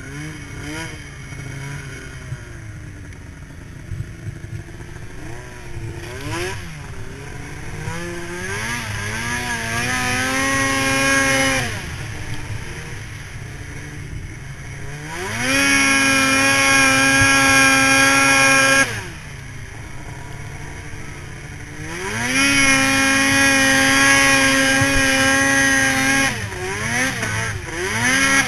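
Arctic Cat M8 snowmobile's two-stroke engine revving up and down while riding through snow. The revs climb and fall back about a third of the way in, then twice hold at a steady high pitch for a few seconds, dropping to lower, uneven revs between.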